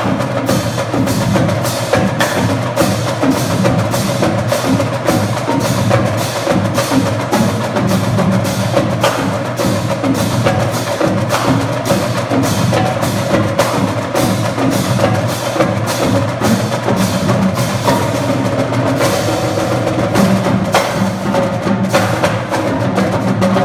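College drumline of snare drums, tenor drums and tuned bass drums, with mallet keyboards, playing a loud, fast, continuous percussion cadence.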